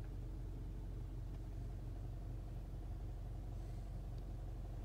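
Audi Q3 Quattro's four-cylinder engine idling, heard from inside the cabin as a steady low rumble.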